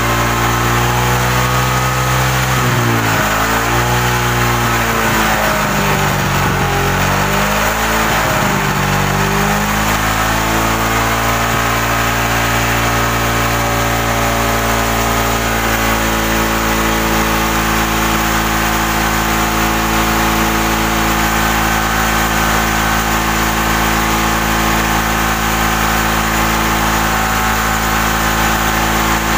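Suzuki Shogun 125's single-cylinder four-stroke engine running. Its speed dips and rises several times over the first ten seconds or so, then it settles to a steady run. It is still running normally while being warmed up, in a test where the mechanic expects a weak pulser to cut the ignition once the engine is hot.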